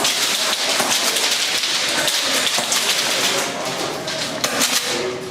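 Airsoft guns firing and BBs pattering against walls and barriers, a dense stream of rapid small impacts that thins out near the end.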